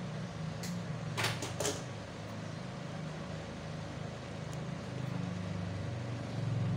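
Steady low hum from the electrical test setup, with a few light clicks between about half a second and two seconds in.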